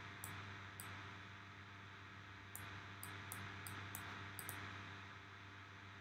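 Faint steady hum and hiss of room tone, with several soft, short computer-mouse clicks scattered through it as sky-texture settings are changed in Blender.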